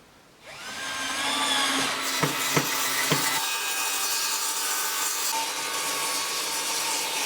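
Cheap table saw switched on, its motor whine rising as the blade spins up, then running steadily as the blade cuts through a wooden board, with a few sharp knocks early in the cut.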